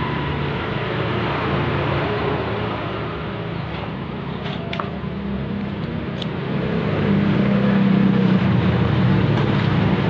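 A motor running steadily with a low humming drone, getting louder about seven seconds in, with a few brief high squeaks near the middle.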